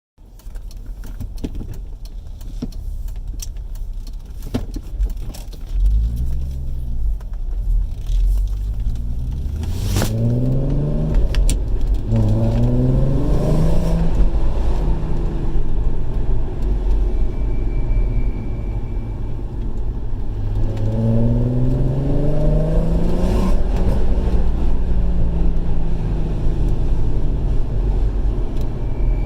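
VW Golf Mk4 R32's 3.2-litre VR6 engine pulling up through the revs twice, then holding and slowly dropping as the car coasts. When it coasts, a faint high-pitched whine comes in briefly, about two-thirds of the way through and again at the end. It is the unexplained off-throttle whine that VW took for an engine vacuum leak and others blame on the brake pads. A sharp click comes about a third of the way in.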